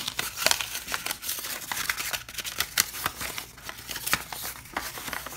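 A rolled paper scroll being handled and unrolled: paper rustling and crackling in quick irregular clicks.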